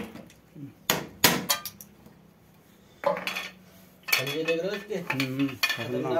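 Hammer blows breaking up floor tile and a drain pipe: three sharp knocks in the first second and a half, followed by a few lighter clinks of chips.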